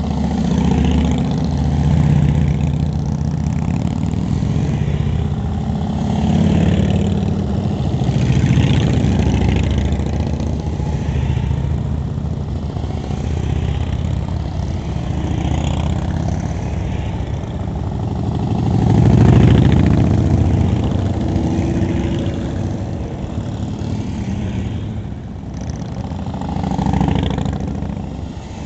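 A procession of Harley-Davidson V-twin motorcycles riding slowly past one after another, each engine rumble swelling and fading as the bike goes by. The loudest pass comes about two-thirds of the way through.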